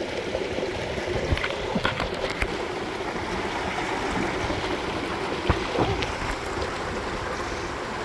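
Waterfall and stream water rushing steadily, with a few brief clicks over it.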